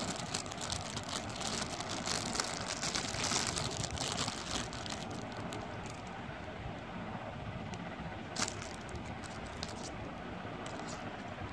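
Clear plastic packet crinkling and rustling as jewellery is handled, densest in the first four or five seconds, with one sharp click about eight seconds in, over a steady background noise.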